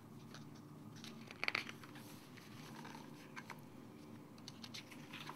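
Pages of a picture book being turned by hand: faint paper rustles and light ticks, with a louder crinkle about a second and a half in.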